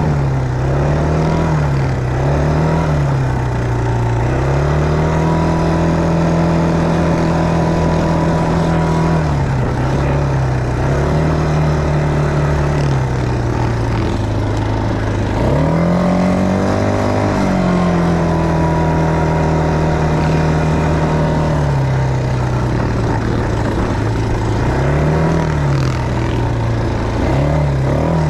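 ATV engine heard from the rider's seat, running under constant throttle changes: its note rises and falls again and again as the rider opens and eases the throttle on a dirt trail. About halfway through it drops low, then climbs quickly.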